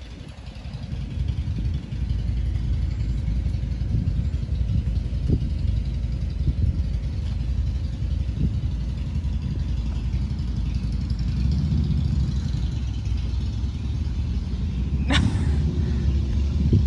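Steady low outdoor rumble that wavers in strength, with one short high squeak falling in pitch about fifteen seconds in.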